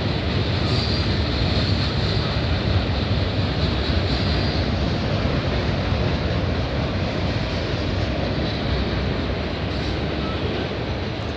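Freight cars of a CN freight train rolling past: a steady rumble of steel wheels on the rails.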